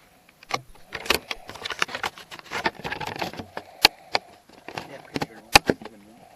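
A series of irregular sharp clicks, knocks and rattles, a few of them louder.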